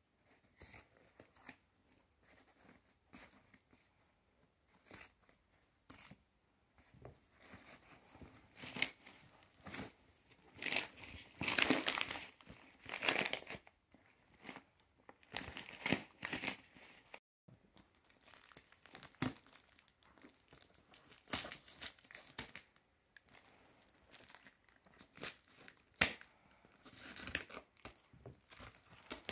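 Stitched white cloth wrapping being cut with scissors and torn away from a taped cardboard parcel, with paper and packing tape crinkling as it is pulled open. The rustles and snaps come in irregular bursts, loudest about halfway through.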